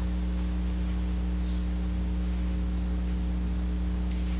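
Steady electrical mains hum, a low buzz with a stack of evenly spaced overtones, unchanging throughout, with a few faint soft rustles.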